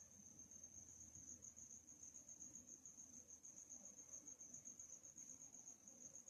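Crickets chirping: a faint, steady, high-pitched trill pulsing rapidly and evenly, with no break.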